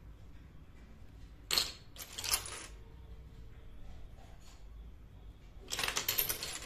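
Miniature ceramic dishes clinking and clattering against each other in a heap as a hand sets pieces down and picks others out: a few quick clinks about a second and a half in, a faint ring after them, and another rattle of clinks near the end.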